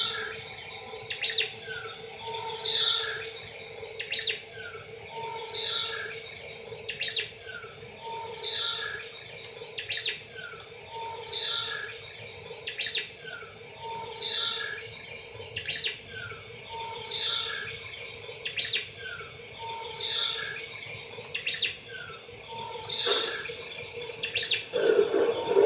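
Bird chirps and calls repeating in an even loop every two seconds or so, as from a recorded birdsong sound effect, over a steady hum. A louder noise comes in near the end.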